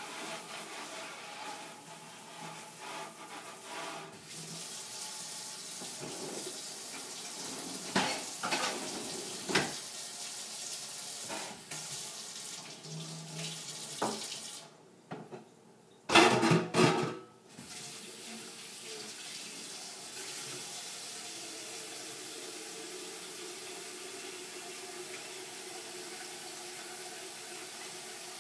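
Kitchen sink faucet running while dishes are washed, with sharp clinks and clatters of dishes. The water stops briefly about halfway through, a burst of loud clattering follows, and then the tap runs steadily again.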